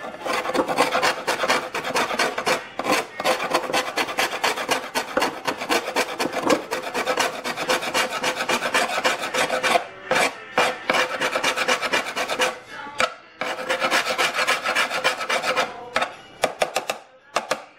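Flat hand scraper scraping degraded resin and old paint off a fibreglass motorcycle rear fender in quick, rasping back-and-forth strokes, with a few brief pauses.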